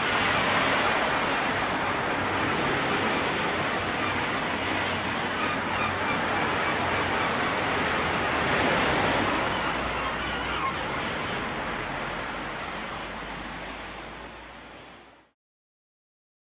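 Ocean surf: a steady rush of breaking waves that swells near the start and again about halfway through, then fades out over the last few seconds to silence.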